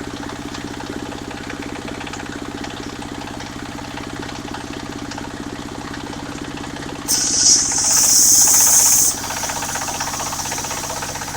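Engine of a mobile circular sawmill running steadily. About seven seconds in, a loud high hissing from the blade cutting through the jackfruit wood lasts about two seconds, then the engine runs on.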